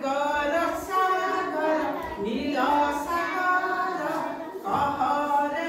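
A woman and a group of young children singing an Odia nursery rhyme together in a sing-song chant, with brief pauses between lines.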